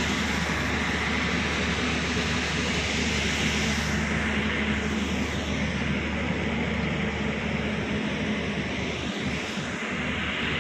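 A steady machine drone with a low hum.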